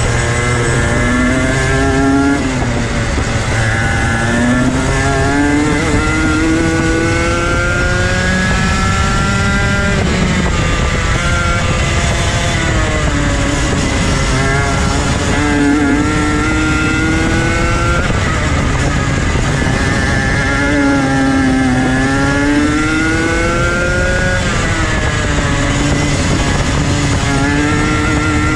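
125cc two-stroke TaG kart engine at racing speed. It climbs in pitch for several seconds at a time as it accelerates, then drops sharply as the driver lifts and brakes for the corners, again and again.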